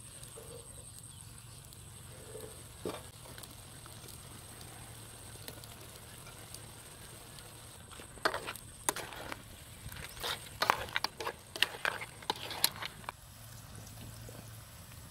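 Spatula scraping and knocking against a wok as crabs in sauce are stirred: a run of sharp clinks and scrapes in the second half, over a faint steady background.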